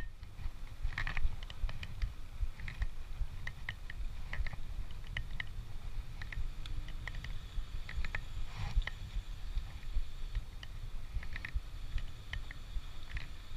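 Riding a bicycle: a steady low rumble with scattered light clicks and ticks coming at irregular intervals, one a little stronger about two-thirds of the way through.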